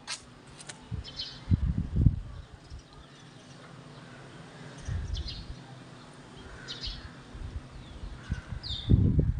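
Small birds chirping now and then in short high calls, over gusts of wind buffeting the microphone in low rumbles, the loudest near the end.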